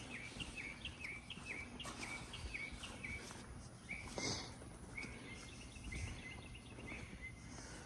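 A bird singing a run of quick, repeated down-slurred whistled notes, about three a second, fainter in the second half, with a brief rustle about four seconds in.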